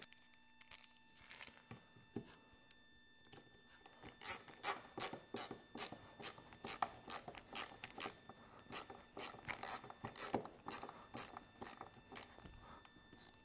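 Ratcheting hand screwdriver turning a stainless steel screw-in snap screw in a boat's fiberglass hull, a quick run of short ratchet clicks and scrapes, about two to three a second, starting about four seconds in.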